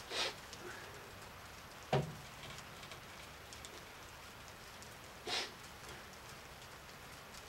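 A single rifle shot from an M38 Mosin-Nagant carbine about two seconds in: one short, sharp crack with a low thump. Two softer, longer scraping sounds come just after the start and at about five seconds.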